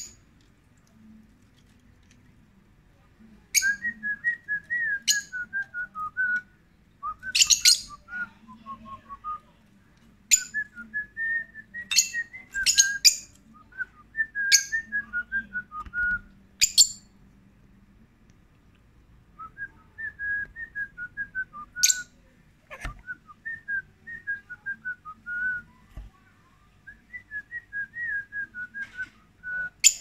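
Rosy-faced lovebirds twittering: runs of quick, whistled notes a few seconds long, broken by sharp high squeaks, with a pause of about two seconds past the middle.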